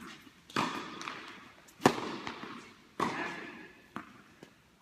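Tennis ball being struck by racquets and bouncing during a rally: three sharp pops about a second apart, the middle one loudest, plus a few fainter ticks, each echoing in a large indoor tennis hall.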